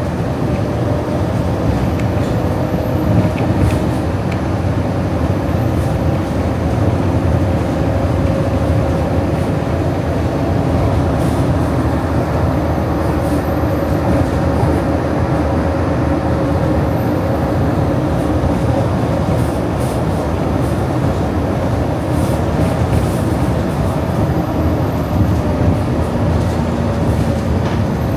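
Walt Disney World monorail running steadily: an even rumble and rush of noise with a held motor whine above it.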